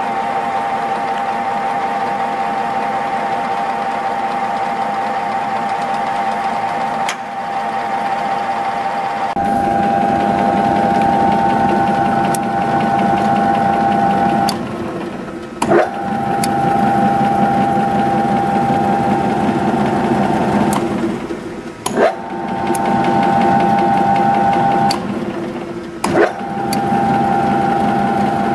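An IBARMIA AZ 32 V pillar drilling machine runs unloaded with a steady mechanical whine. Its sound changes and fills out about nine and a half seconds in. Three times it briefly dips and sweeps back up, with a few small clicks in between.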